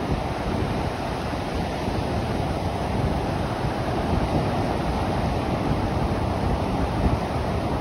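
Steady rush of small surf waves breaking and washing over shallow sand, with wind rumbling on the microphone.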